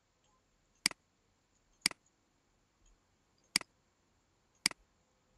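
Computer mouse button clicked four times, each click a quick press-and-release pair, with irregular gaps of about one to two seconds between them.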